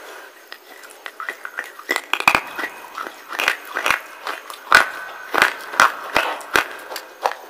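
Crisp crunching and chewing of a wet slate bar held in the teeth, an irregular run of sharp crunches, sparse at first and coming thick and fast from about two seconds in.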